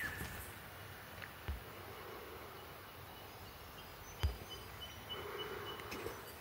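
Quiet outdoor bush ambience: a faint steady hiss with a few faint, distant bird calls in the second half. A soft thump comes about four seconds in, with a weaker one earlier.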